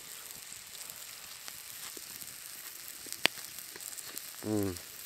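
Food sizzling steadily on a hot cast iron skillet, a fine high hiss with small crackles. A single sharp crackle comes a little past three seconds in, and a short low hum of a voice near the end.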